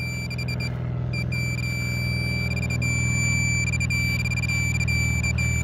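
Handheld metal-detecting pinpointer sounding a high tone: a few quick chirps at first, then an almost unbroken tone from about a second in, the signal that its probe is right on buried metal in the hole, here a piece of copper pipe. A steady low hum runs underneath.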